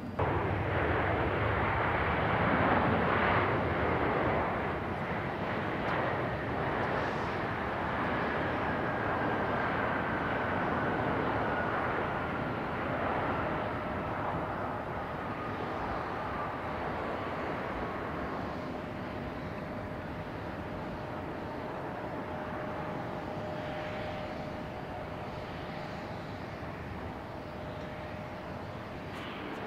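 Jet airliner's engines at close range: a loud rushing noise for the first few seconds, then easing, with a turbine whine that slowly falls in pitch and a second steady whine as the sound gradually fades.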